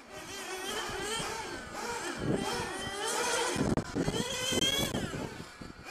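Small nitro glow engines of 1/8-scale RC GT cars running on track, their high-pitched whine rising and falling as the cars accelerate and brake through the corners. More than one engine is heard at once, loudest through the middle of the clip.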